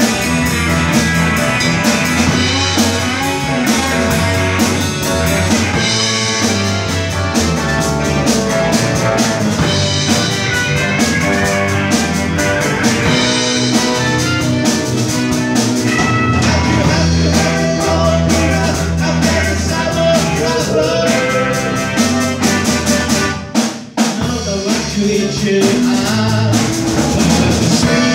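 Live rock band playing, with drum kit, electric bass, electric guitars and keyboards. The music drops away for a moment near the end, then comes back in.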